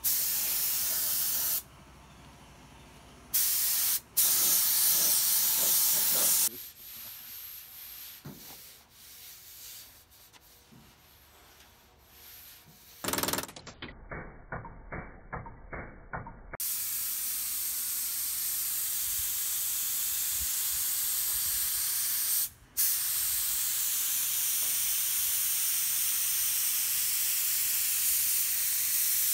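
Air-fed automotive paint spray gun hissing in long passes, stopping and starting. Around the middle the hiss gives way to quieter handling noise and a few seconds of quick rhythmic strokes, then the spray hiss runs steadily again with one brief break.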